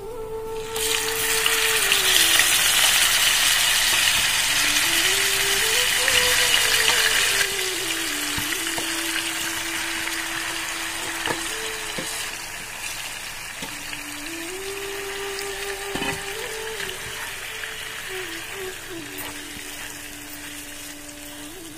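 Marinated chicken pieces dropped into hot oil in a pan, setting off a loud sizzle about a second in that eases after about seven seconds and then slowly fades as the chicken fries. A soft flute melody plays underneath.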